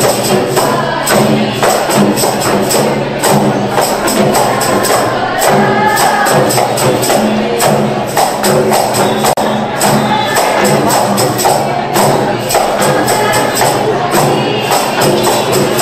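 Qasidah music: girls' voices singing together over a steady, rapid beat of hand-held rebana frame drums.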